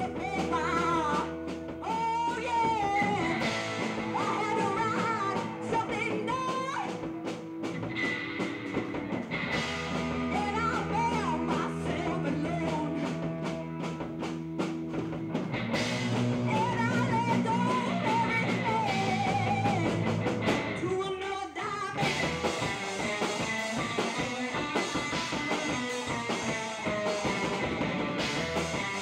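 A live rock band plays: electric guitars and a drum kit behind a female lead vocal. The singing drops out about three quarters of the way through, leaving the band playing on.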